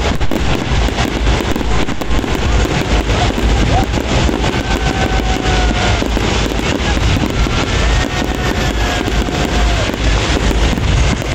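Fireworks display: ground fountains and aerial shells going off together, a continuous rushing hiss thick with rapid crackles and pops.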